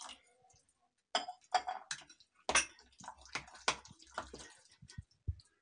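A spoon stirring thick semolina batter in a glass bowl, clicking and scraping irregularly against the glass as added water is worked in to thin the batter.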